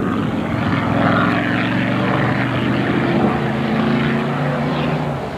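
Chevrolet V8 of a Chaparral race car running at speed past the track, a loud sustained engine note.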